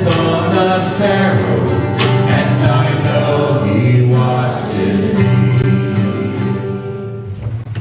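A song with singing over instruments, in a country or gospel style, fading out near the end.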